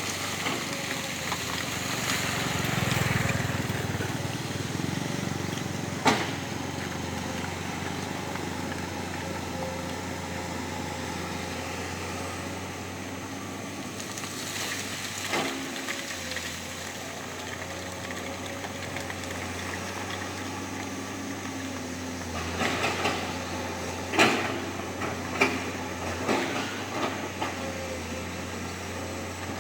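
Heavy construction machine's engine running steadily, with a sharp knock about six seconds in, another around halfway, and a run of clanks and knocks near the end.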